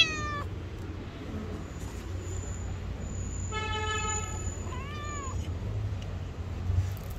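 Domestic cat (orange tabby) meowing: the tail of a loud meow at the very start and a short arched meow about five seconds in. In between, a car horn toots once for under a second, over a steady low traffic rumble.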